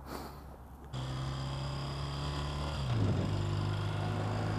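1993 BMW R100R's air-cooled flat-twin engine running steadily under way, with wind noise, coming in suddenly about a second in. About three seconds in the engine note steps down in pitch and then holds steady again.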